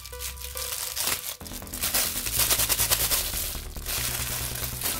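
Metallic foil candy-style wrapper crinkling and crackling as hands twist it open and crumple it, the crackle densest and loudest about halfway through.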